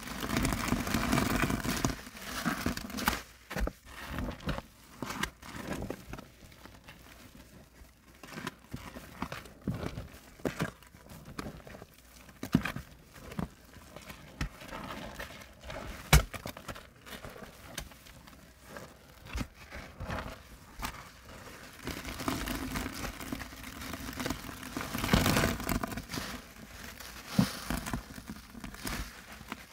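Soap-laden foam sponge squeezed and wrung in gloved hands: wet squelching with the crackle of lather bubbles popping. Louder squeezing spells come at the start and again past the two-thirds point, and there is a single sharp snap about halfway.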